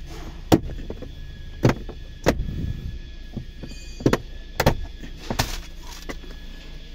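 A handful of sharp, irregularly spaced clicks and knocks from hand tools and car dashboard parts being handled while the trim is unbolted, over a low steady hum.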